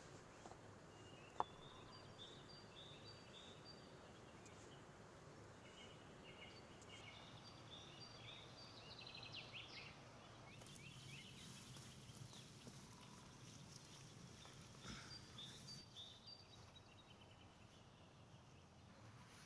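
Quiet outdoor ambience with faint bird chirps, short calls repeated throughout. One sharp knock comes about a second and a half in.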